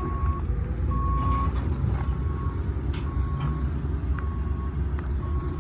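Vehicle reversing alarm beeping, a short high tone about once a second, over a steady low rumble.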